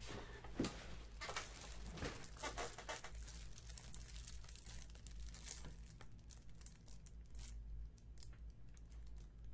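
Plastic wrapping on packs of trading-card top loaders rustling faintly as they are handled, with a few light knocks in the first two seconds.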